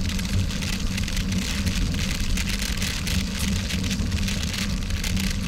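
Ride noise from a gravel bike on a loose dirt-and-gravel road: tyres crunching and grinding with a constant crackle of small clicks and rattles, over a steady low wind rumble on the front-mounted camera's microphone.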